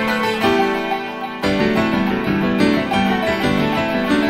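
Instrumental background music carried by a keyboard melody, with a fuller low accompaniment coming in about a second and a half in.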